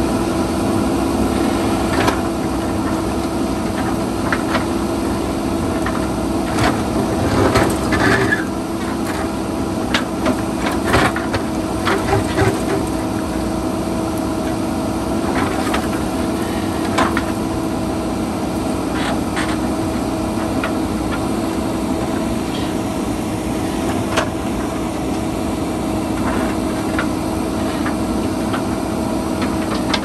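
JCB backhoe loader's diesel engine running steadily under work, with scattered sharp knocks and scrapes as the bucket breaks into rock, thickest about a third of the way in.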